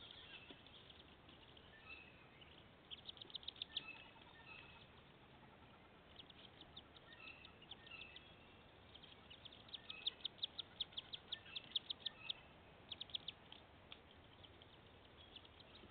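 Faint high-pitched peeping of wood duck ducklings, in quick runs of short notes at about six a second, with scattered single chirps between. The runs come about three seconds in and again from about ten to thirteen seconds in.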